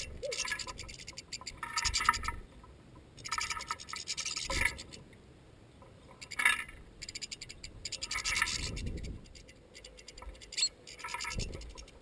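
European goldfinches at a metal feeder of sunflower seeds: bursts of rapid scratching and clicking as they peck and shuffle the seeds and grip the feeder, about six bursts with gaps between, some with a low thud.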